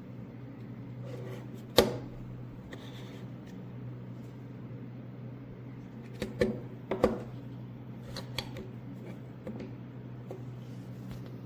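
A steady low hum with scattered sharp clicks and knocks, like small objects being handled: one loud click about two seconds in, a quick cluster of several about six to seven seconds in, and a few fainter ones after.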